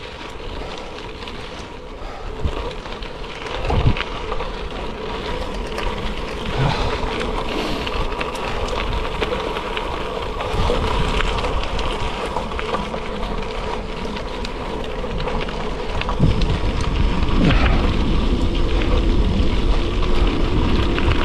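Gravel bike riding over a gravel track: a steady crunching hiss of tyres on loose stones with a low rumble and occasional knocks, getting louder about sixteen seconds in.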